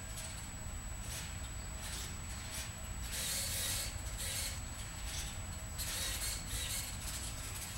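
Small servo motors in the Reeti robot's head whirring in short bursts as its eyes and head move to copy a tracked face, over a steady low hum.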